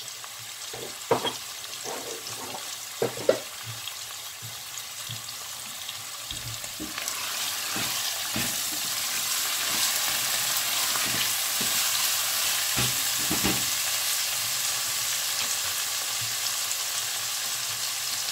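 Diced squash, ham and tomato-paste sofrito sizzling in an enamelled pot while being stirred with a silicone spatula. A few sharp knocks come in the first few seconds, then about seven seconds in the frying hiss grows louder and stays steady.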